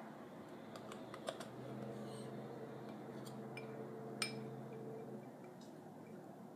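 Light clicks and taps of a metal spoon against a plastic yogurt cup and a drinking glass as yogurt is scooped and spooned in, a cluster about a second in and the sharpest tap a little past four seconds.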